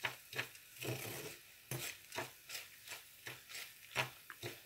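Metal spatula scraping and stirring grainy, half-melted sugar around a frying pan in quick repeated strokes, about two or three a second, with one longer scrape about a second in. The sugar is being cooked down to caramel but is still granular and unmelted.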